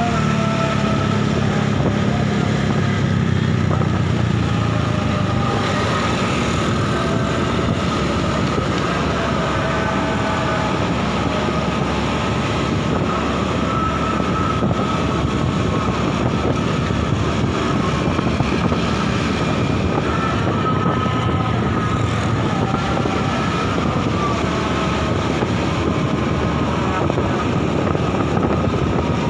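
Motorcycle ride: steady engine and road noise with wind rushing over the microphone. The engine's low note is plainest in the first few seconds.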